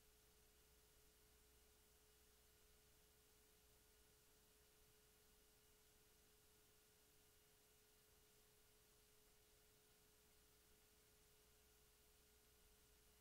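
Near silence: faint hiss with a thin, steady tone.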